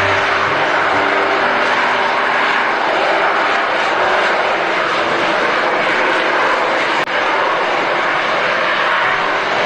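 Fighter jet engine noise: a loud, steady jet rush with faint whining tones, briefly dipping with a click about seven seconds in.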